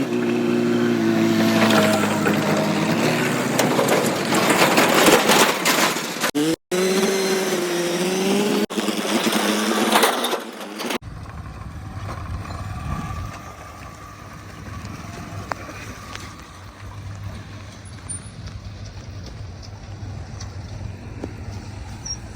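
Diesel engines of heavy machinery running. The first half is loud, with the engine pitch rising and falling and two abrupt cuts. About halfway in it changes to a quieter, steady low engine hum.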